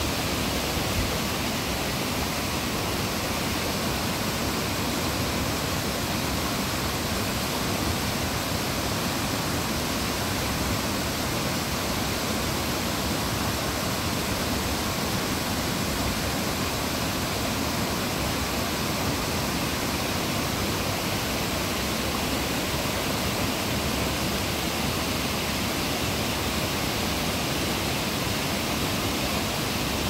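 Small mountain creek cascading over rock ledges and boulders into pools: a steady, unbroken rush of falling and splashing water.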